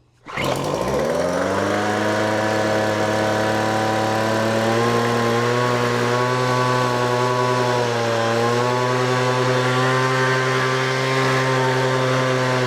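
A Weed Eater FB25 25cc two-stroke leaf blower engine catches on a rope pull on half choke about half a second in. It climbs quickly in speed, then runs steadily with a slight sag around eight seconds in. Starting and running smoothly like this shows that the fuel-system repair has worked.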